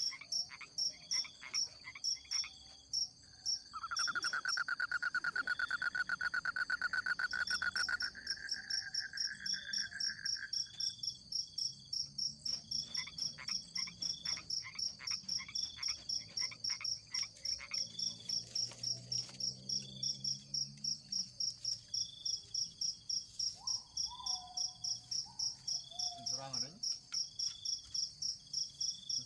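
Night chorus of insects and frogs: a steady high chirping that pulses about three times a second, with shorter higher chirps repeating. A lower, rapid trill joins from about four seconds in and stops at about eleven.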